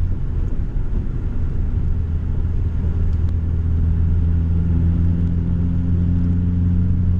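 Cabin interior of a 1990 Honda Civic cruising, its D16 four-cylinder exhaust running through a Vibrant muffler with no resonator: a steady deep, bassy drone.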